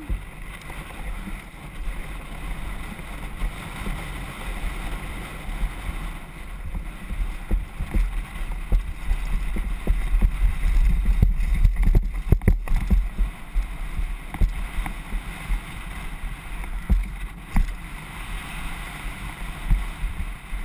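Wind buffeting a helmet-mounted camera's microphone during a fast mountain-bike descent, a heavy low rumble, with knocks and rattles as the bike jolts over the dirt trail. The rumble and jolting are strongest around the middle.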